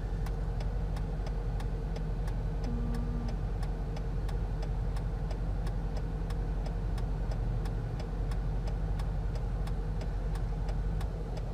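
Car interior noise: a steady low engine and road rumble with a faint even hum, and light ticks repeating about three times a second throughout.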